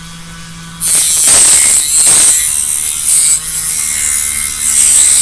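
A Dremel rotary tool's cut-off disc cutting into a thin metal suspension piece to trim its edge: the tool hums at first, then about a second in a loud, high-pitched grinding starts as the disc bites the metal, easing briefly about three and a half seconds in before carrying on.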